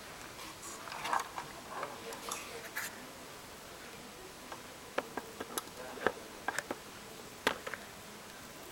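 Handling noise: soft rustling for a couple of seconds, then a scattered run of small, sharp clicks over the last few seconds.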